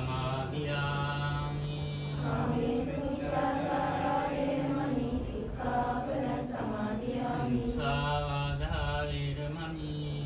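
Group of voices chanting Buddhist devotional verses in a slow, drawn-out unison melody, with a steady low hum underneath.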